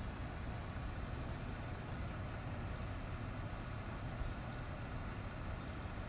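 Jeep Gladiator pickup's engine idling, a steady low rumble, with two faint high chirps over it.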